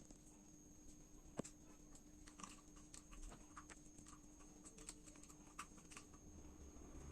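Faint, scattered taps and clicks of a cat playing, paws and a toy knocking on a surface, with one sharper click about a second and a half in.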